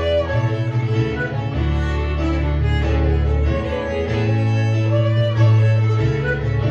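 Live folk band playing a tune: two fiddles bowing the melody over melodeon and Nord stage piano, with sustained bass notes changing every second or so.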